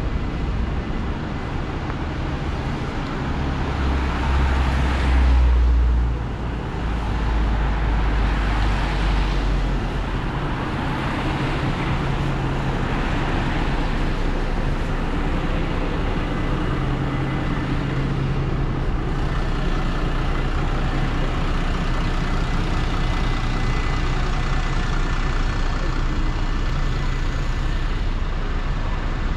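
City street traffic: cars and heavier vehicles passing in a steady stream, with a deep engine rumble from a heavy vehicle loudest about five seconds in.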